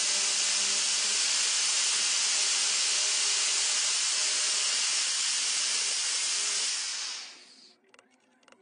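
An electric drill spinning a homemade metal cutting disc on a bolt, cutting through PVC pipe: a steady hissing rasp of the disc in the plastic. About seven seconds in it fades away as the cut finishes and the drill stops, leaving a few faint clicks.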